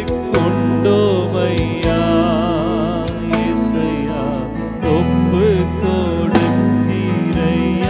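Christian worship song: a lead voice singing a melody with vibrato over instrumental backing with a steady bass and beat.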